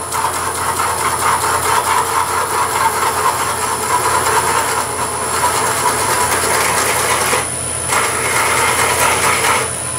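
Wood lathe spinning a Bradford pear bowl blank while a 2-inch Forstner bit, held in the tailstock's drill chuck, bores into the centre: a steady grinding, rasping cut over the lathe's hum, easing briefly about seven and a half seconds in, then resuming.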